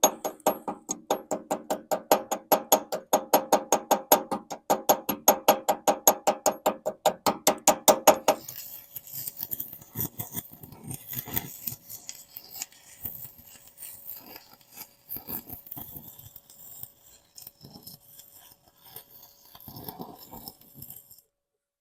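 A hammer rapidly pinging a cast-iron weld, about five ringing taps a second, peening the bead so it won't crack. The taps stop about eight seconds in, and electric welding follows: irregular crackling and hiss.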